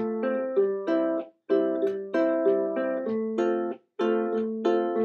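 Ukulele playing a chord progression in the key of C, chord after chord in a steady rhythm, with the sound stopping briefly about a second and a half in and again near four seconds in.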